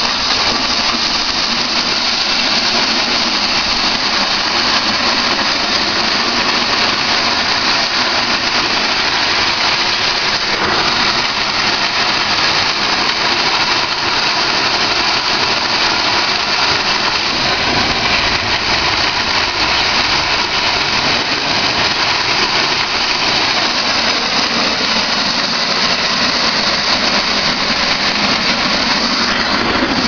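Maize thresher running steadily: a loud, even mechanical noise that does not change.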